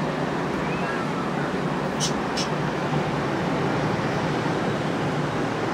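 Steady outdoor background noise, a mix of rumble and hiss, with two short high chirps about two seconds in from a caged parakeet.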